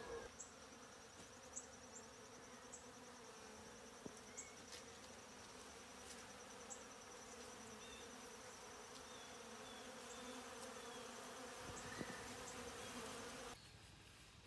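Swarm of honey bees buzzing as a steady hum around an open feeder of sugar water, a sign of bees robbing the feed. The hum cuts off abruptly near the end.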